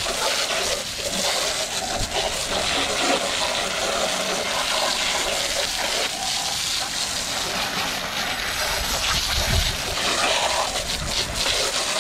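Garden hose spray nozzle sending a steady jet of water onto a backpack leaf blower's engine and the stone wall under it, an even hiss with splashing, as it rinses off degreaser.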